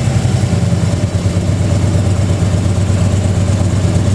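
2012 Harley-Davidson Street Glide's 103 cubic-inch V-twin idling steadily with an even pulsing beat, just after being started from cold to warm up.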